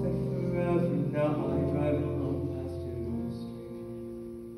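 Live stage-musical music with singing: a few held chords that slowly fade away.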